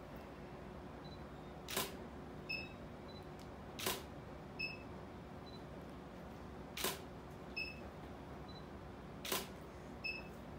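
Camera shutter firing four times, a few seconds apart. Each sharp click is followed under a second later by a softer click with a short high beep.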